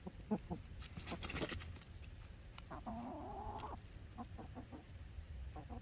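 Chickens clucking softly in short scattered notes, with one drawn-out call lasting about a second near the middle and a brief rustling burst a little over a second in.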